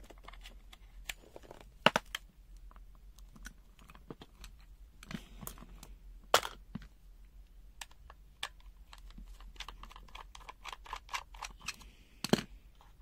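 Scattered small plastic clicks and taps from handling a card-size multimeter and its test leads on a silicone work mat, with three louder knocks.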